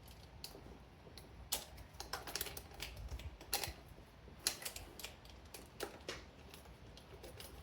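Worn motorcycle roller drive chain being handled as the master link is worked free: scattered light metallic clicks and clinks at irregular intervals.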